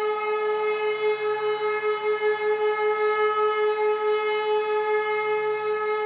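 E57 electromechanical civil-defence siren sounding one steady, unbroken tone that wavers slightly in loudness. This is the German 'Entwarnung' all-clear signal, sounded during a test alarm.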